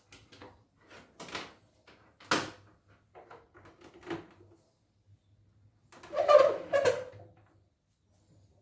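Scattered clicks and knocks of hardware being handled, with a sharp knock a little over two seconds in and a louder clatter around six seconds in.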